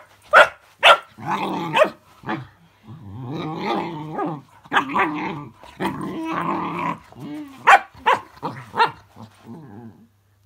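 Cocker spaniel puppy barking and growling at a spinning fidget spinner: a few sharp barks at the start, then long, wavering, howl-like growls broken by more short barks. She is too wary of the toy to grab it.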